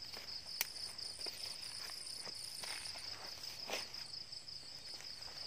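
Steady high-pitched trilling chorus of night insects, with footsteps and rustling through leaf litter and low plants and a sharp click about half a second in.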